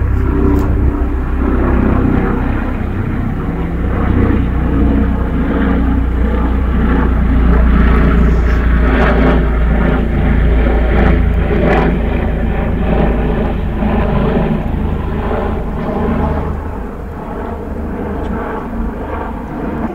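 Steady low engine rumble with a noisy wash of traffic sound over it, easing off a few seconds before the end.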